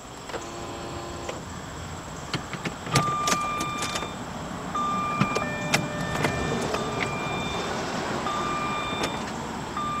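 A 2003 Jaguar S-Type's electronic warning beeps: short tones at several different pitches repeating every second or two, with scattered clicks. The mechanic is unsure whether it is some security feature.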